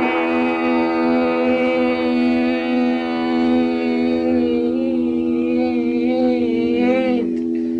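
A band's closing held chord, steady and unchanging, with a wavering hummed or sung note over it that wobbles in pitch and stops about seven seconds in. Lo-fi dictaphone home recording.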